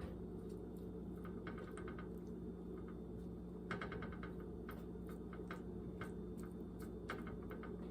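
A steady low hum with scattered light clicks and three short runs of rapid ticking, about 1.5, 4 and 7 seconds in.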